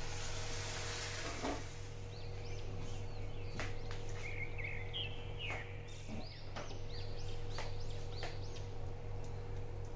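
Milk being poured into a frying pan of chicken filling, then a spoon stirring and clicking against the pan. Birds chirp in the background over a steady low hum.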